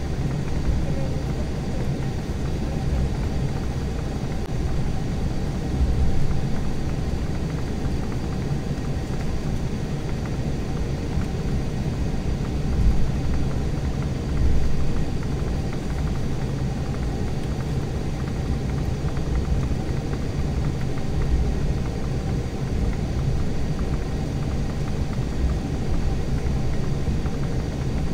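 Steady cabin rumble inside an Embraer E175 airliner on the ground after landing, with its turbofan engines humming at low power. The rumble swells briefly a few times, around six seconds in and twice near the middle.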